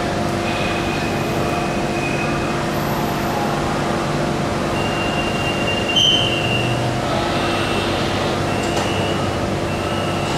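BTS Skytrain electric metro train running at the station: a steady hum with a few fixed tones, and high wheel squeals that come and go several times.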